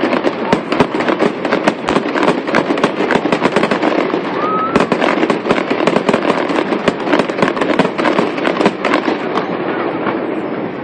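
Aerial fireworks going off in a dense, continuous run of crackles and bangs, thinning out near the end.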